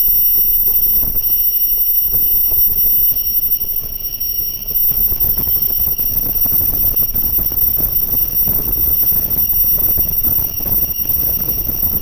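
Gemstone-working machine running with a steady high-pitched whine over a rough low rumble; the rumble grows louder about five seconds in.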